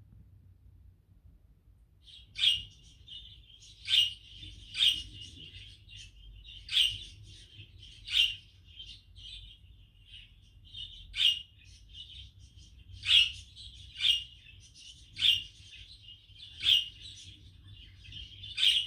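Bird chirping: about a dozen sharp short calls, one every second or two, starting a couple of seconds in.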